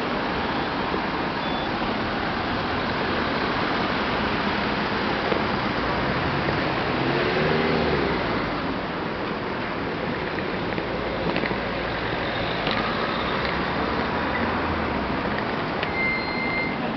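Steady road traffic noise from cars passing on a city boulevard. A short high tone sounds near the end.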